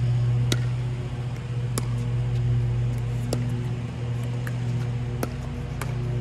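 Pickleball paddles striking a plastic ball in a doubles rally: about five sharp pocks, one every second or so, over a steady low hum.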